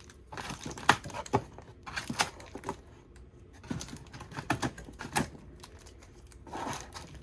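Cardboard and plastic toy packaging being handled and opened: irregular clicks, taps and crinkles.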